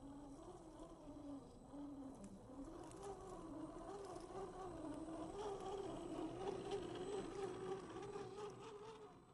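Electric motor and geared drivetrain of an RC crawler on a Boomracing Defender 110 chassis whining as it crawls, the pitch wavering with the throttle, rising a little and growing louder from about three seconds in as it nears. Light crackling of the tyres over dry leaves and pine needles.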